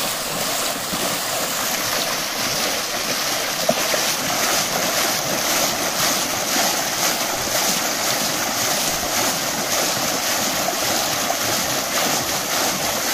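Shallow muddy water being churned and splashed steadily by hands and arms.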